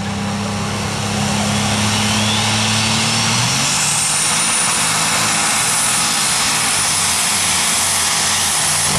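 Pulling tractor running flat out down the track, a loud steady engine noise with a high whine that climbs over a couple of seconds and then holds steady, cutting off suddenly near the end.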